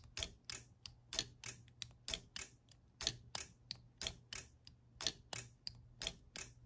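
A 3D-printed flip dot being flipped back and forth with a momentary toggle switch: rapid sharp clicks, about three a second and often in close pairs. The clicks are the switch lever snapping and the magnetised dot clacking over as the electromagnet polarity reverses.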